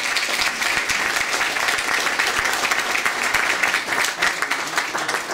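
Audience applauding: many hands clapping in a dense, steady patter that thins a little near the end.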